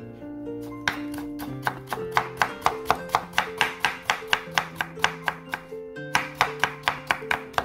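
Chef's knife chopping carrot into thin matchsticks on a wooden cutting board, in quick even strokes of about four a second, with a brief pause about six seconds in. Background music plays underneath.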